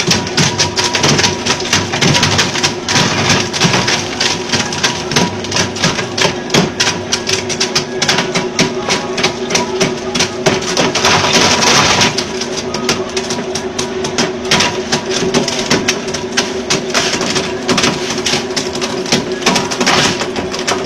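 Electric block-ice crusher running, a steady motor hum under a dense, rapid clatter of ice being broken up in the hopper. It grows louder for a moment about eleven seconds in.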